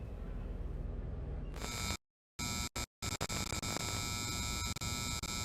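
Faint room tone. About one and a half seconds in, a harsh, steady electronic buzz with several held tones starts, and it cuts out abruptly to silence a few times.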